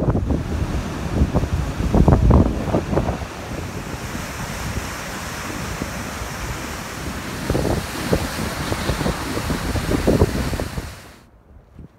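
Wind buffeting the microphone in gusts over the steady rush of Upper Yosemite Fall's water plunging over the cliff edge. Both cut off suddenly near the end.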